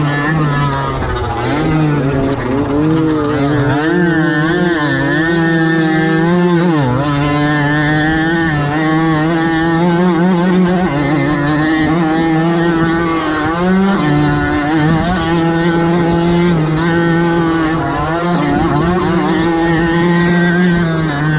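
Small two-stroke racing moped engine running hard, its pitch rising and falling as the throttle is worked through the turns and bumps of a dirt track.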